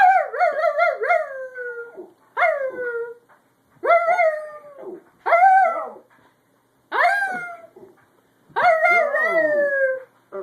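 Dog howling in six short calls, each starting high and sliding down in pitch, about a second and a half apart. The dog's voice is failing, which the owner puts down to laryngitis or something stuck in its throat.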